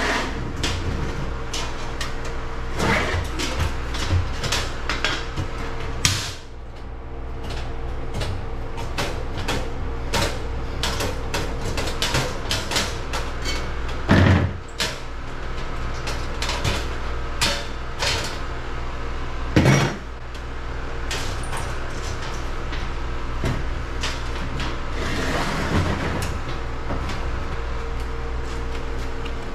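Hand work on a sheet-steel electrical panel cover, the knockout being twisted out with pliers: many small metal clicks and clanks, with three louder sharp knocks spread through, over a steady hum.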